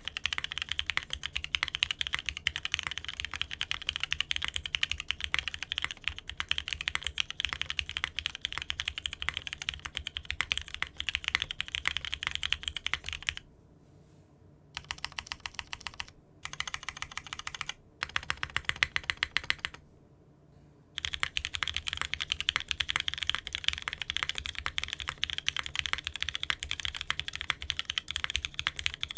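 Rapid typing on a mechanical keyboard fitted with Cherry-profile keycaps, a dense run of key clacks. The typing stops briefly a few times about halfway through, then resumes at the same pace.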